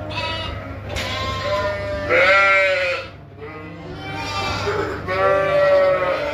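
A flock of sheep bleating, several long calls one after another with hardly a break, the loudest about two seconds in.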